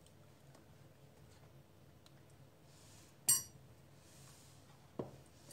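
Quiet kitchen room tone with a single sharp clink about three seconds in and a softer knock near the end, as eggplant halves and a knife are handled on a wooden cutting board.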